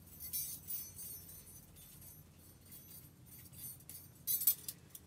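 Small titanium parts of a Boundless Voyage meths stove clinking and jingling as they are handled and taken apart, with a few soft light clinks early on and a sharper cluster of clinks near the end.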